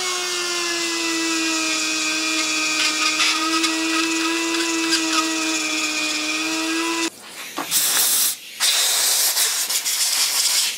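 Small high-speed rotary tool grinding away burrs around the drilled and tapped scope-base screw holes inside a Remington 700 steel receiver, so the bolt will slide in smoothly: a steady high whine whose pitch sags slightly under load, cutting off about seven seconds in. Two short bursts of rushing hiss follow near the end.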